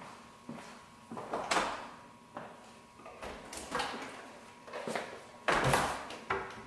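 Footsteps on a tile floor, then a refrigerator door opened and a jug and bottles handled inside, rustling and knocking. The fridge door is pushed shut about five and a half seconds in, the loudest sound.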